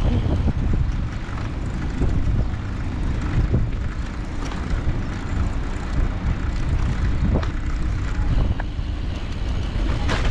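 Steady low rumble of wind on the microphone and tyre noise as an ICE Adventure recumbent trike rolls along a tarmac road, with scattered faint clicks and rattles.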